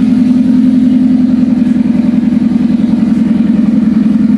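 Turbocharged 1.8T 20-valve four-cylinder engine idling steadily.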